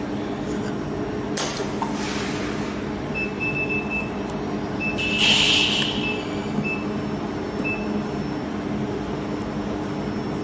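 Steady machine hum with several fixed low tones. A single sharp click comes about a second and a half in, a brief hiss around the middle, and faint short high beeps on and off.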